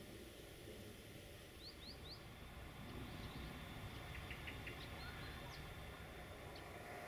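Faint outdoor background rumble with a few short, high bird chirps scattered through it.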